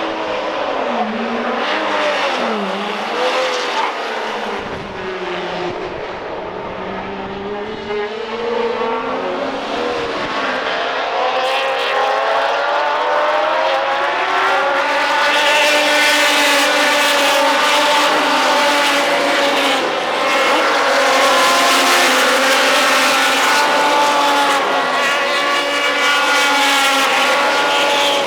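Procar 4000 race cars' inline-six engines at racing speed, several at once, their notes rising and falling as they accelerate, shift and pass. Thinner in the first part, then louder from about halfway on with several cars together.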